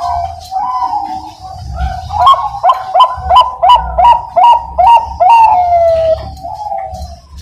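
Zebra dove (Bangkok-type perkutut) singing its loud cooing song: a few warbled coos, then a quick run of about eight short clipped notes ending in one long coo that falls in pitch.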